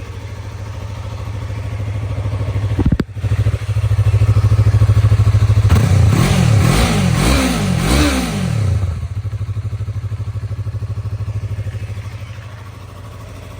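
2016 Yamaha R3's 321 cc parallel-twin engine idling, revved in several quick rising and falling blips about six to nine seconds in, then settling back to idle. It runs cleanly, with no odd engine noises. A brief click comes about three seconds in.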